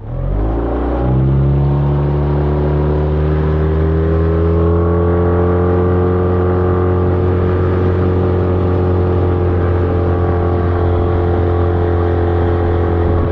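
Boat's outboard motor starting up, its pitch rising over the first second, then running loud and steady.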